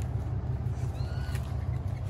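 A single short bird call about a second in, rising then levelling off, with overtones, over a steady low rumble.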